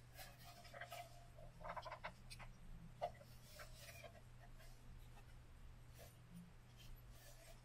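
Faint handling noise: a split bison-horn billet and a chert preform turned over in the hands on a leather pad, with one light click about three seconds in.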